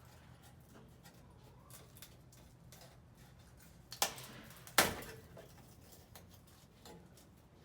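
Two sharp knocks less than a second apart about four seconds in, the second one louder, over a faint steady low hum; no cutting wheel is running.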